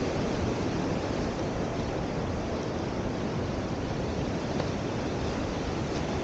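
Ocean surf breaking and washing on the shore, a steady unbroken noise.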